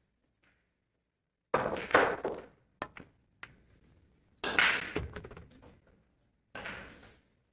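Pool balls clacking during play: a sharp knock about a second and a half in, then a run of further knocks over the next few seconds, each trailing off briefly.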